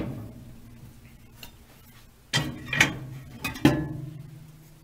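A metal pan of roasted sunflower seeds clanking and scraping against the wire rack of a small electric countertop oven as it is pulled out. There are a few clanks about halfway through and more about a second later; the last leaves a low ring that fades.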